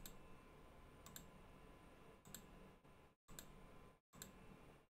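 Faint computer mouse clicks, about five spread a second or so apart, each a quick press-and-release, over near silence.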